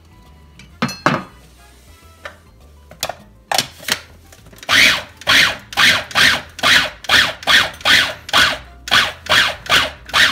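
Kenwood electric mini chopper pulsed in short bursts, about two a second, chopping tomatoes, coriander and chilli into a coarse salsa. The pulses start a few seconds in after a couple of knocks as the chopper is handled.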